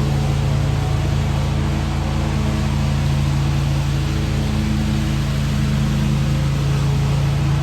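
Riding lawn tractor's engine running steadily as it goes over fallen leaves. It makes an even hum that holds the same pitch throughout.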